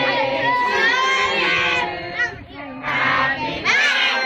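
A crowd of children and adults, many voices calling out and talking over one another, with a short lull a little past halfway.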